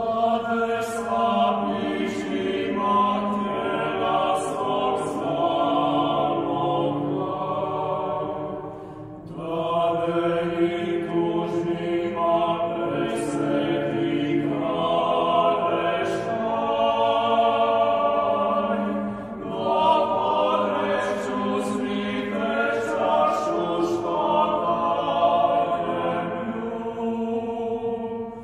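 Chamber choir singing a Croatian Christmas hymn in parts, with Croatian words. The singing breaks briefly between phrases about nine and nineteen seconds in.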